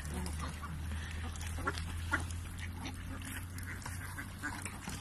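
Mallard ducks on the water quacking now and then, in short scattered calls.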